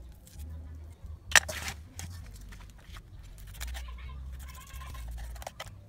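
A blade cutting and scraping small fish on a wooden chopping board: scattered clicks and scrapes, the loudest a sharp click about a second and a half in.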